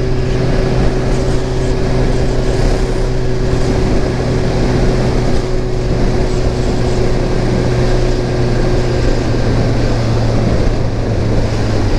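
Motorcycle engine running steadily while riding, under a constant noisy rush; its note shifts slightly about nine seconds in.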